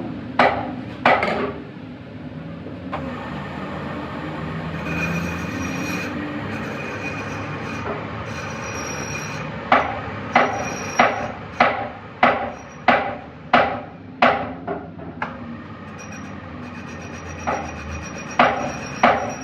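Metalworking hand-tool strokes on steel: a stretch of steady rubbing, then about ten evenly spaced sharp strokes a little under two a second, with a few more near the end.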